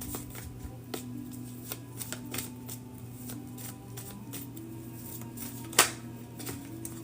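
Soft background music with slowly stepping low notes, over scattered sharp clicks and taps, one much louder click a little before the end.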